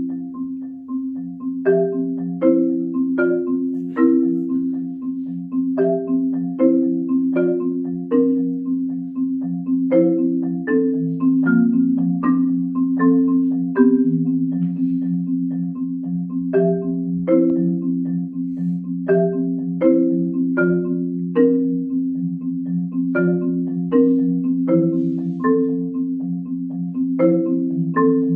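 Yamaha concert marimba played solo with mallets: steady low notes sound beneath a melody of separately struck higher notes, about two a second. The low notes shift to a new pitch partway through.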